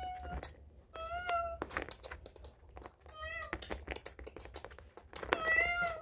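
A child meowing in pretend play: four short meows with gliding pitch, the second and last longer, mixed with light clicks and taps of plastic toy figures handled on the floor.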